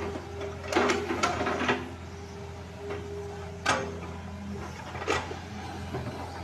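Excavator engine running with a steady low drone, and a few sharp metallic knocks: a quick cluster about a second in, then two single knocks later on.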